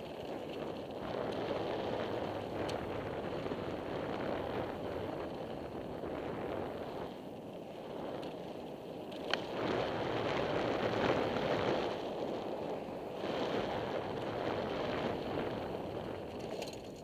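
Bicycle rolling along a dirt trail: tyre noise over dirt and gravel that swells and eases, with wind on the helmet-mounted microphone and a few sharp clicks and rattles from the bike.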